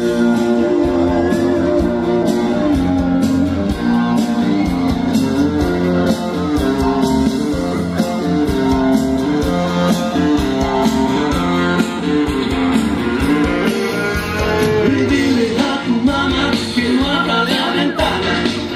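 Music with guitar and a steady beat, with singing.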